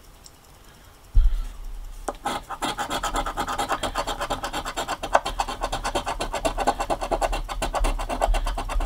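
A coin scraping the latex coating off a scratch-off lottery ticket in quick, repeated strokes, starting about two seconds in. A sharp knock comes just after the first second.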